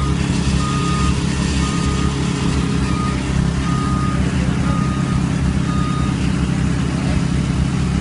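Heavy diesel engine of a concrete mixer truck running steadily under load while concrete is chuted into forms, with a vehicle backup alarm beeping about once a second that stops about six seconds in.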